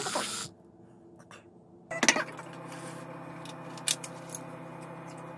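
Handheld electric milk frother whirring in beaten eggs, cutting off about half a second in. After a short lull, a few sharp clinks of kitchenware against a frying pan over a steady low hum.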